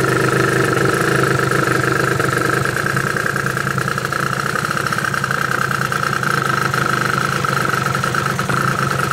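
Water-cooled, Rotax-based single-cylinder two-stroke Lambretta engine idling steadily.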